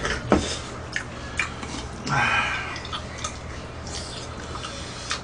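Eating sounds: wet chewing, with a few sharp clicks of chopsticks against the plate and bowls.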